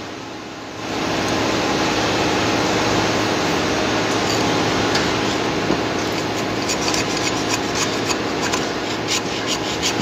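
Gloved hand scrubbing the rusty surface of a steel concrete-pump pipe fitting back and forth, a dense steady rubbing noise that starts about a second in and gains sharp scratchy clicks in the last few seconds.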